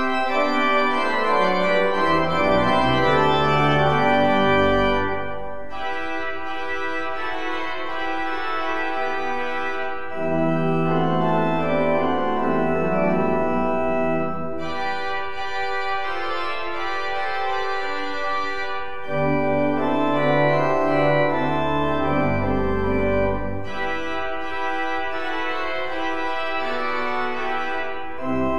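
Pipe organ playing a festive, chordal piece. Loud phrases with deep pedal bass alternate every four to five seconds with lighter passages that have no pedal.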